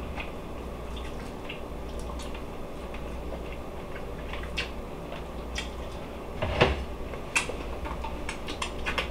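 A person chewing rotisserie chicken close to the microphone: soft, irregular mouth clicks and smacks over a low steady hum, with louder smacks about six and a half and seven and a half seconds in as he licks his fingers.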